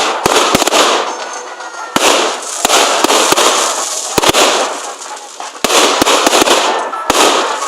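Fireworks display: a dozen or so sharp bangs of bursting shells at uneven intervals, some in quick pairs, with a dense crackling hiss between them.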